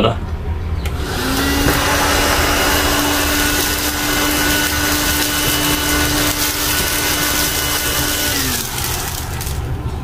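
Hanabishi stick vacuum cleaner, converted to run from a DIY battery pack, switched on about a second in. Its motor runs at a steady whine with rushing suction air as it picks up bits of paper, then it is switched off near the end and the motor winds down.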